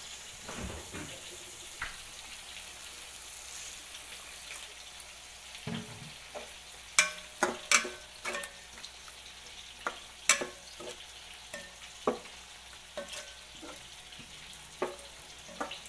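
Onion-tomato masala sizzling in an enamel pot as a spoon stirs it, with scattered sharp clacks of the spoon against the pot, most of them in the second half.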